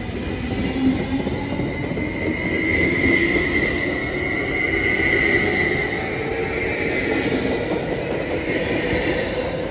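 Caltrain Stadler bi-level electric multiple unit pulling out and gathering speed past the platform: rumbling wheels and rails, a steady high tone, and an electric whine that rises slowly in pitch as it accelerates.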